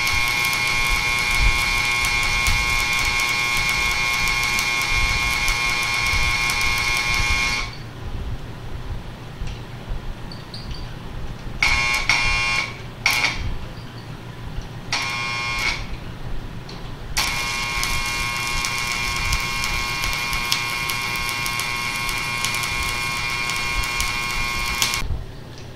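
Stick welding arc buzzing steadily as weld is built up on the worn contact surfaces of a tractor front-end-loader mount. The arc breaks off about a third of the way in, is struck twice briefly, then runs steadily again until just before the end.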